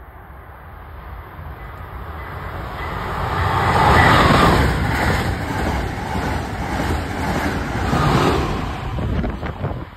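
Amtrak Acela electric high-speed trainset passing a station platform at speed: a rushing noise of wheels and air that builds over the first few seconds, is loudest about four seconds in, and stays loud as the cars go by.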